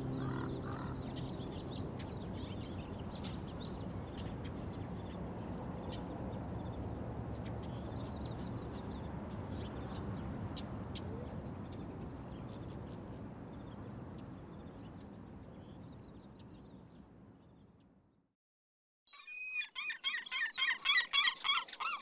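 Birds chirping and twittering over a steady background hiss, slowly fading out. After a moment of silence, a loud, rapidly pulsing warbling call comes in near the end.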